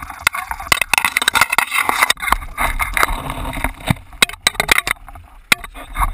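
Handling noise of an action camera being picked up and turned over: a string of irregular knocks and scraping rub against the microphone and housing.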